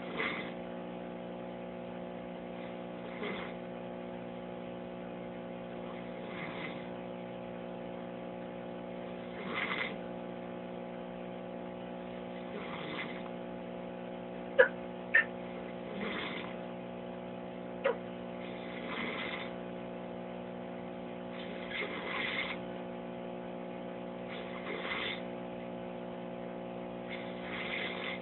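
A sleeping man snoring, one soft breath about every three seconds, over a steady electrical hum. About halfway through there are three short, sharp clicks.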